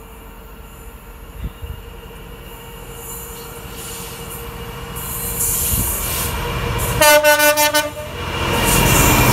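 Class 66 diesel freight locomotive approaching and growing steadily louder. About seven seconds in it sounds its horn for about a second, then the engine and wheels pass close at full loudness.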